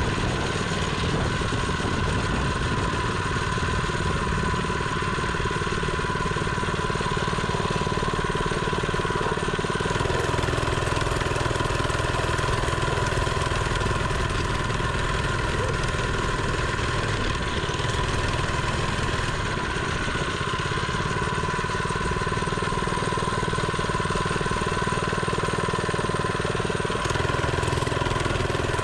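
Mini bike's small engine running at a steady speed, its note shifting slightly about a third of the way in and again near the end.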